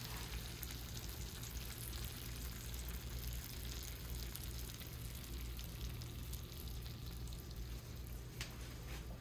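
Faint, steady sizzling and crackling of hot pan juices around a roast chicken in a ceramic baking dish fresh from the oven, over a low steady hum.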